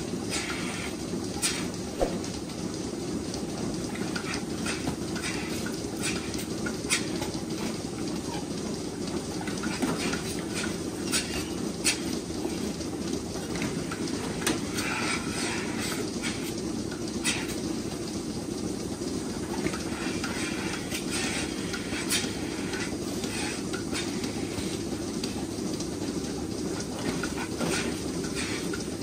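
Rotary milking parlour in operation: a steady low mechanical rumble from the turning platform and milking equipment, with frequent irregular clicks and metallic clanks.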